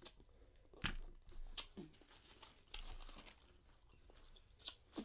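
Quiet sounds of eating crab: soft chewing with a few sharp clicks, one about a second in, another half a second later and two near the end.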